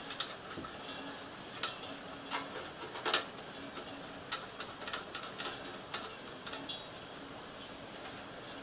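Light, irregular clicks and taps of a copper pipe and its brass union nut being handled and screwed onto a pipe elbow by hand.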